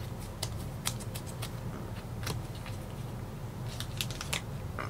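Stiff trading cards being handled and flicked through one by one, giving irregular light clicks and snaps of card stock, over a low steady hum.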